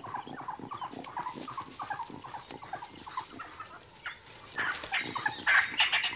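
African wild dogs giving a rapid series of short, high-pitched twittering calls and yelps, the excited calls of a pack mobbing a predator. The calls grow louder and higher about four and a half seconds in.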